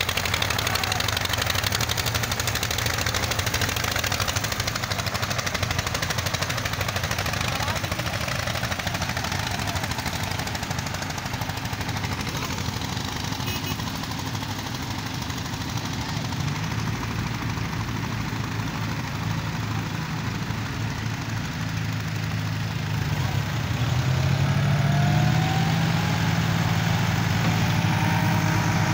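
Diesel tractor engine running steadily, then revving up with a rise in pitch and loudness about three-quarters of the way through.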